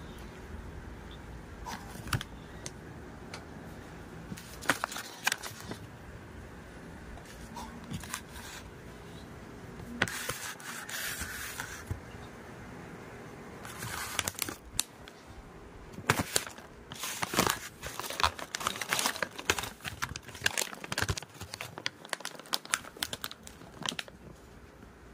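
Plastic bag of mixed fruit and vegetable crisps crinkling and crackling as it is handled, in irregular bursts that come thicker in the second half.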